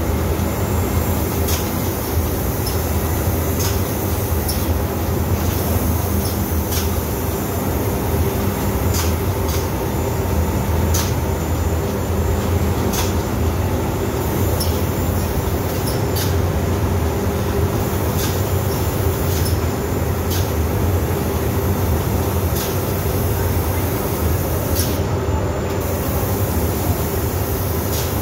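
Steady loud rumble and hum of paint-booth machinery and ventilation, with short high hisses every one to two seconds.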